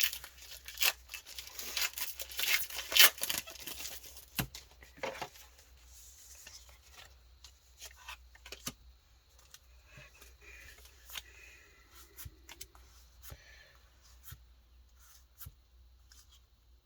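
A Pokémon booster pack's foil wrapper being torn open, crackling and crinkling for the first few seconds. Then quieter scattered clicks and light rustling as the trading cards are handled.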